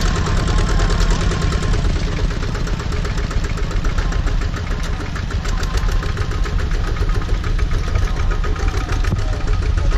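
Diesel engine of a two-wheel Cambodian farm tractor chugging steadily as it pulls a loaded trailer, a fast, even run of firing beats.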